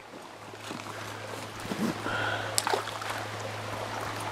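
Quiet creek-side background with a steady low hum, a short chirp about two seconds in, and a brief sharp splash just after as a longear sunfish is let go back into the water.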